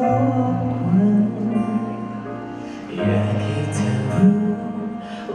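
A male singer singing live into a handheld microphone over musical accompaniment, with a held low bass note that shifts to a new note about three seconds in.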